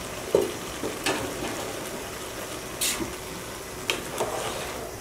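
A pot of polao rice sizzling faintly and steadily on low heat with its lid off, with a few light clicks of a spoon against the metal pot as the rice is turned.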